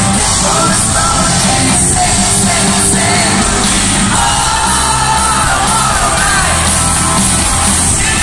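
Loud live rock band music: a sung lead vocal over guitar and drums, with the crowd yelling along.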